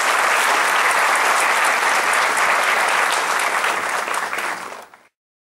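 Audience applauding steadily after a talk, cutting off abruptly about five seconds in.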